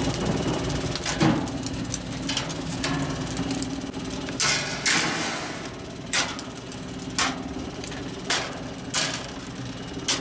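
Charcoal or wood fire burning in a brick grill, with sharp pops and cracks at irregular intervals, about one a second, over a steady low hum.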